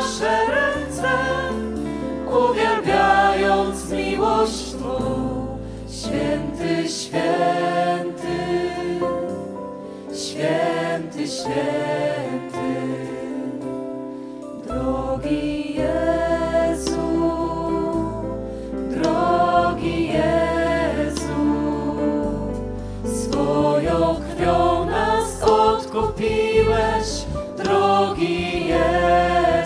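A Christian song of praise: singing voices over instrumental accompaniment with held low bass notes.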